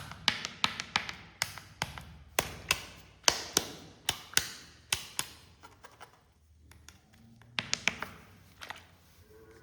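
A series of sharp taps and clicks, about two or three a second, thinning out about halfway through, with a short burst of taps near the end.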